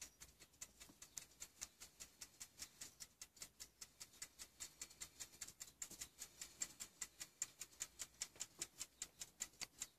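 Faint, steady ticking of a French carriage-clock movement with a balance instead of a pendulum, about five ticks a second.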